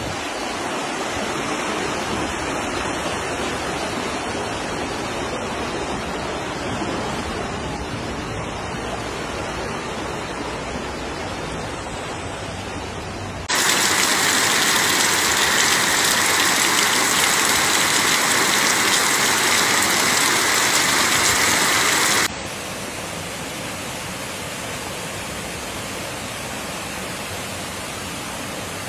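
Heavy rain and rushing floodwater, a steady noise throughout. About halfway through it switches suddenly to a louder, brighter hiss of pouring rain, then after several seconds drops back to the duller rush of water.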